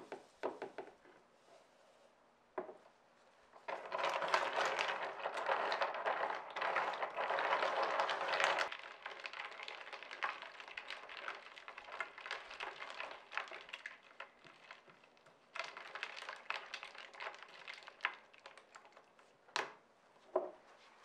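A plastic spoon stirring and scraping inside a plastic beaker of liquid. There is a dense, gritty stretch of scraping from about four to nine seconds in, a second stretch around sixteen seconds, and scattered clicks of the spoon against the beaker wall in between.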